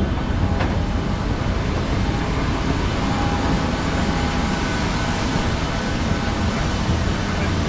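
Steady low rumble and hiss of a moving vehicle's interior, with a short light click just after the start.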